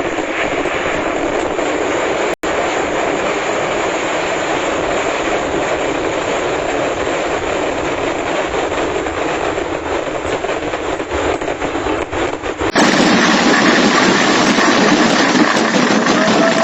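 Vedikettu fireworks barrage: a rapid, unbroken string of explosions merging into one continuous crackling roar. It breaks off for an instant a couple of seconds in. Near the end it switches abruptly to a louder, fuller steady roar.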